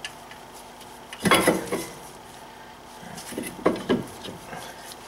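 Metal brake parts clanking and scraping as they are handled, with one louder clank a little over a second in, then a few lighter knocks and clicks.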